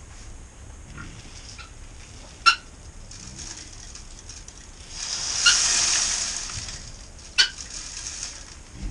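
Dry chicken feed poured from a bucket into a feeder tube: a rushing hiss of grain that swells a little past the middle, peaks, then tails off. Two brief sharp sounds, one before the pour and one as it ends.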